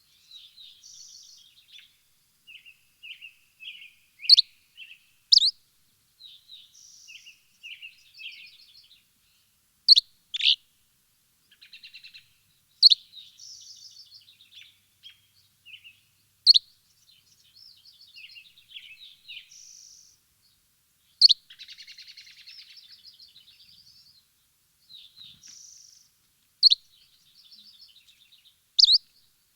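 Birds chirping: loud, sharp chirps every few seconds, often in pairs, with softer twittering in between, against an otherwise clean background.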